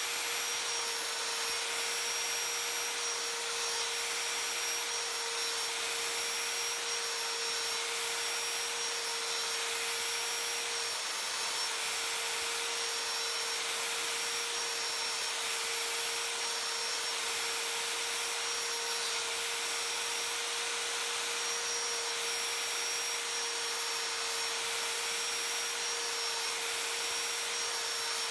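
Sliding mitre saw running steadily with a constant whine while its blade nibbles a series of shallow kerfs into hardwood to cut out a recess.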